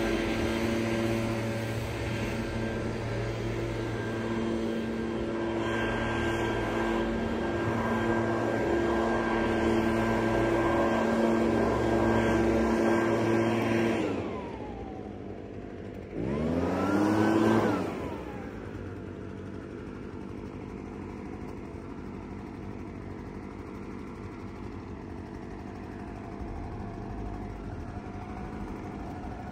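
An engine running steadily, then winding down about halfway through. It revs up briefly and falls away again, leaving a quieter steady hum.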